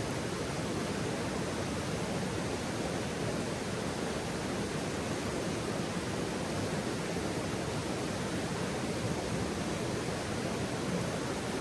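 Steady, even rushing noise with no distinct crackles or pops.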